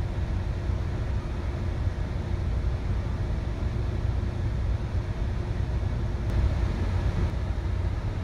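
Steady low engine drone and rumble inside a city bus creeping forward in slow traffic, with a faint steady hum over it.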